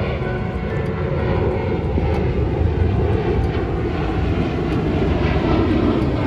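Jet airliner flying low overhead, a loud steady engine roar heavy in the low rumble.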